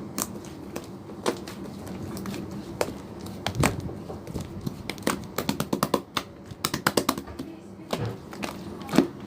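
Slime being squeezed and poked by hand, giving a run of irregular short sticky clicks and pops, densest in the middle and with one sharp pop near the end.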